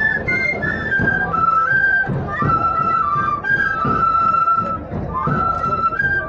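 Andean flutes played by marchers in a procession, piping a melody that moves in steps between held notes.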